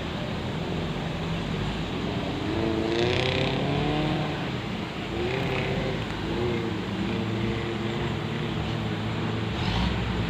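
Off-road jeep engine running under load and revving, its pitch climbing about three seconds in and again around six seconds, over a steady rushing noise.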